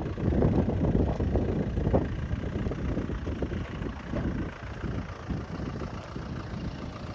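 Off-road 4x4's engine running as it drives a rough track, louder over the first two seconds and then easing off.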